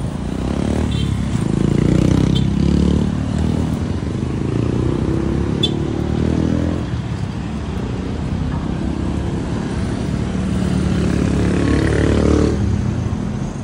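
An engine running steadily nearby, a loud low rumble.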